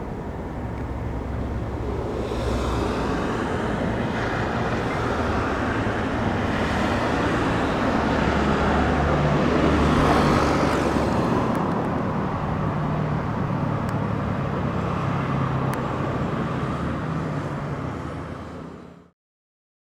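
Road traffic noise: motor vehicle engine and tyre noise, swelling to a peak about halfway through and easing off again, then cutting off abruptly near the end.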